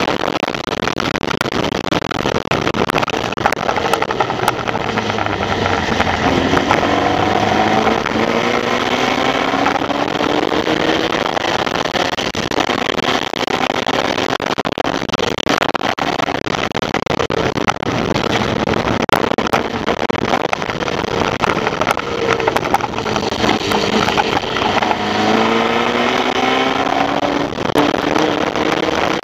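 Formula Vee race car's air-cooled Volkswagen flat-four engine at racing speed, heard from on board with wind rushing past. The engine note climbs in pitch twice as the car accelerates: about five seconds in, and again about six seconds before the end.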